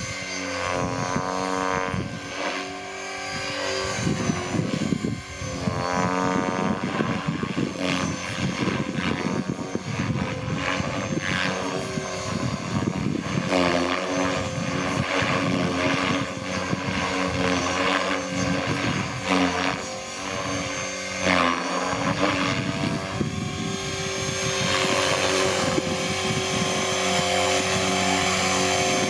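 Align T-Rex 500L electric RC helicopter in flight: its main rotor and brushless motor give a steady pitched whirring hum at a head speed of about 2700–2800 rpm, the pitch rising and falling as it manoeuvres overhead. Near the end it is sitting on the ground with the rotor still spinning.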